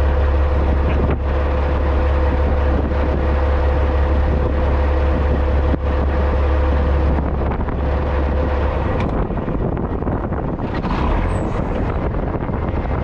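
CAT C15 diesel of a 2006 Peterbilt 379 running steadily, a loud deep drone with a steady hum, picked up outside the cab beside the exhaust stack. About seven seconds in, the deep note weakens and turns rougher, with some wind on the microphone.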